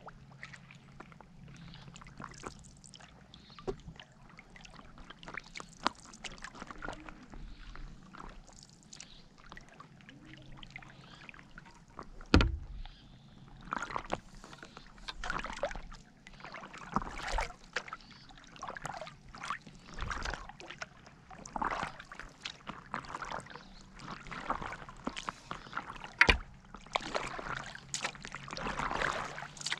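Stand-up paddleboard paddle strokes: the blade dipping and pulling through lake water in repeated splashing swishes about every second, louder in the second half, with water lapping at the board. Two sharp knocks, one near the middle and one near the end.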